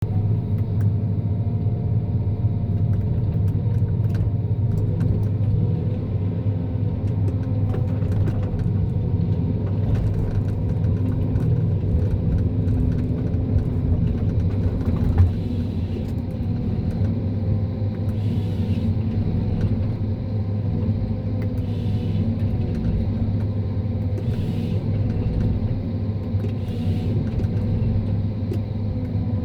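John Deere 1270G eight-wheel forestry harvester's diesel engine running steadily, with scattered light clicks and one sharp knock about halfway through.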